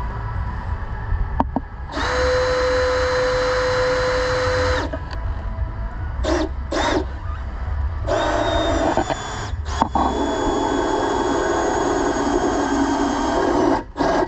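Power drill drilling holes in a roll cage mounting part. It runs steadily with a whine for about three seconds, gives two short blips, then runs again for about six seconds.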